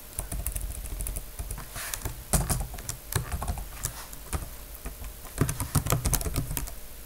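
Typing on a computer keyboard: an irregular run of keystroke clicks, some struck harder than others, as text is deleted and retyped.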